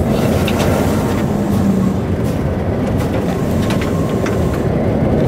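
Locomotive running slowly along the track, heard from inside the cab: a steady engine drone over the rumble of wheels on the rails, with a few light clicks.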